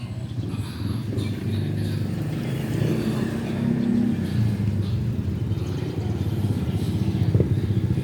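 A motor vehicle's engine running, with a low hum that slowly grows louder.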